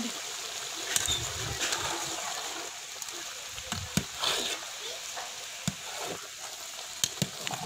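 Metal ladle mixing wet rice and chicken masala in a large aluminium pot for biryani: a wet stirring, sloshing sound with a few sharp clinks of the ladle against the pot.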